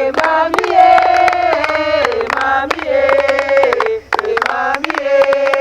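Several voices singing a chant together, holding long notes that step up and down in pitch, over a steady run of sharp percussive clicks.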